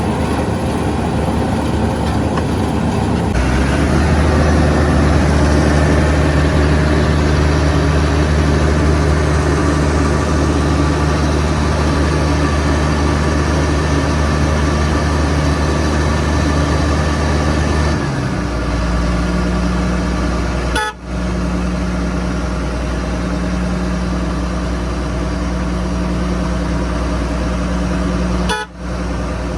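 Diesel engines of road-construction machinery running steadily, a deep, even drone. Its pitch and character change abruptly about 3 s and 18 s in, and it dips out briefly twice near the end.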